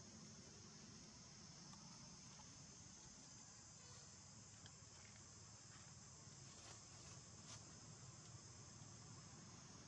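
Faint, steady high-pitched drone of insects, with a few faint clicks over it.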